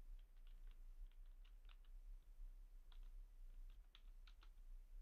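Faint typing on a computer keyboard: about fifteen light key clicks in two short runs, with a pause of about a second between them.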